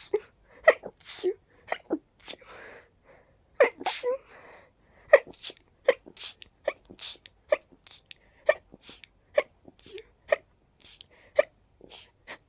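A person sneezing over and over in a long fit: more than a dozen short, sharp sneezes in quick succession, about one to two a second.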